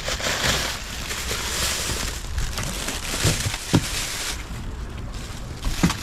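Thin plastic grocery bags rustling and crinkling as they are grabbed and handled, fading after about four seconds, with a couple of soft low knocks a little past the middle.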